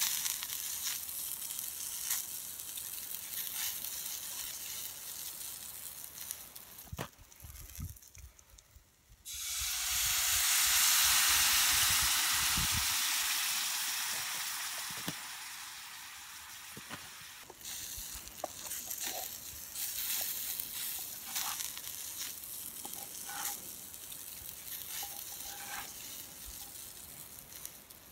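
Chicken pieces sizzling as they fry in a skillet over campfire coals, with the light scrape and tap of a wooden spatula stirring them. About nine seconds in a much louder sizzle starts suddenly, with steam rising from the pan, and fades away slowly over several seconds.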